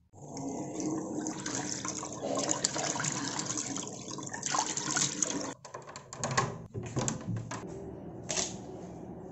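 Water running and splashing as a face is washed with the hands, cutting off suddenly about five and a half seconds in, followed by a few light clicks and knocks.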